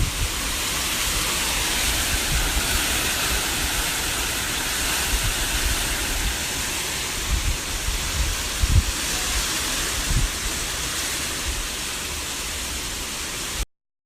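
Heavy hurricane rain pouring steadily, with low gusts of wind buffeting the microphone now and then; it cuts off abruptly near the end.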